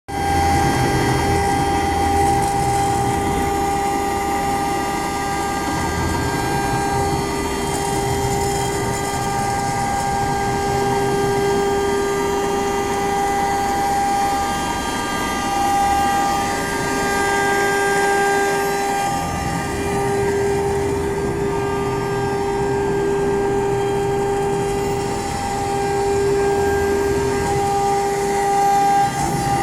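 CNC router spindle cutting acrylic, a steady whine on two held pitches that swells and fades slightly as the bit works.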